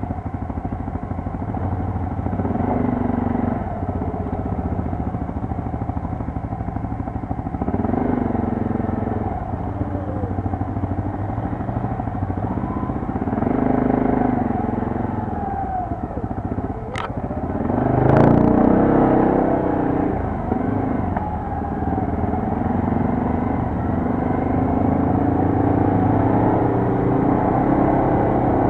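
Quad bike (ATV) engine running under way, the throttle opening and closing so the engine note rises and falls every few seconds. About two-thirds through there is a sharp knock, then a brief louder, rougher burst.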